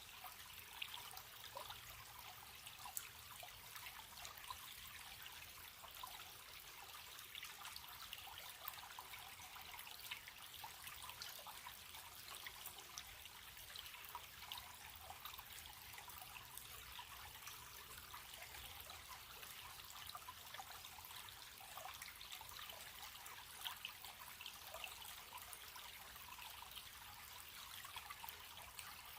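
Small stream running steadily: a faint, even trickle of water with many tiny splashes.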